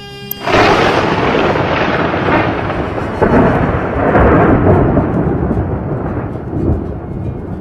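Thunder: a sudden crack about half a second in, then a long rolling rumble with a few swells that slowly fades.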